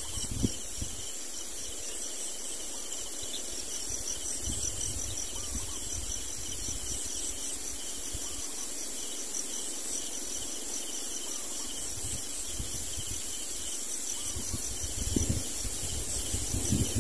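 Insects chirring in a steady, high, pulsing chorus, with a low rumble of wind on the microphone near the end.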